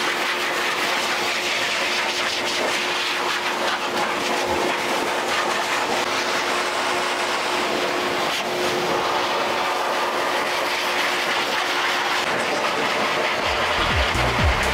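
Two hose-fed high-velocity pet dryers blowing a steady, loud rush of air onto a wet dog's coat, with a steady motor whine. Music with a beat comes in near the end.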